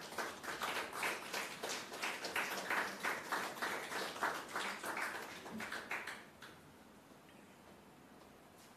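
A small audience applauding by hand, individual claps distinct. The clapping dies away about six seconds in.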